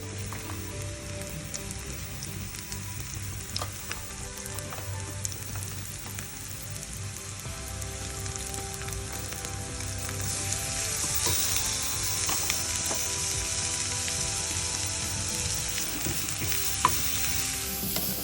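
Food sizzling in hot oil in a pan, with occasional clicks of a utensil against the pan. The sizzle grows louder and brighter about ten seconds in.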